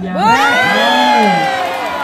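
Crowd of spectators cheering and shouting, many voices swelling about a quarter second in and fading toward the end: the cheer greets a point won as the ball hits the volleyball court.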